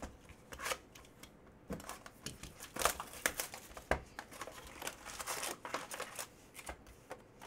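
Plastic shrink-wrap crinkling and tearing as a sealed hobby box of hockey cards is unwrapped, with scattered knocks and clicks from the cardboard box being handled.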